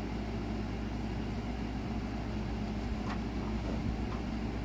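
Steady low mechanical hum in the room, with one faint click about three seconds in.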